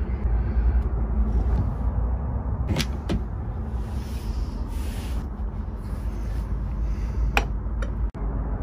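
Wind buffeting the microphone as a steady low rumble, with a few light clicks: two about 3 s in and two more near the end.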